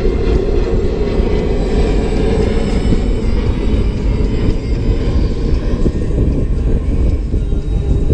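Motor boat running underway: a steady low rumble of its engines mixed with wind and rushing water.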